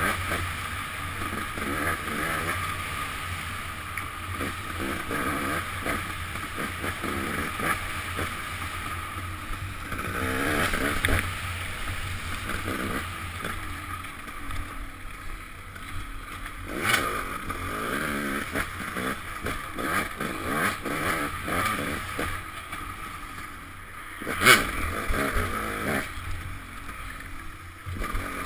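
Off-road motorcycle engine heard through a helmet-mounted camera, revving up and down with the throttle as it rides a trail. A few sharp knocks from the bike hitting bumps are heard, the loudest about three-quarters of the way through.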